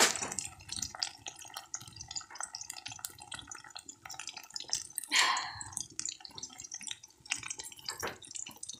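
Fish steaks frying in hot oil: a steady sizzle full of irregular small pops and spits, with a louder burst of sizzle about five seconds in.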